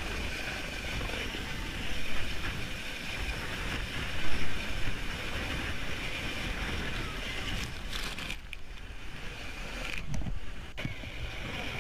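Steady engine noise from a rescue craft, with louder bumps about two and four seconds in; the sound drops out abruptly twice near the end.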